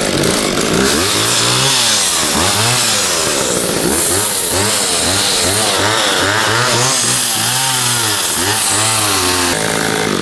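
Old McCulloch two-stroke chainsaw running, revved up and down again and again so its pitch rises and falls in quick repeated sweeps. The owner takes its running to need a little carburetor adjustment.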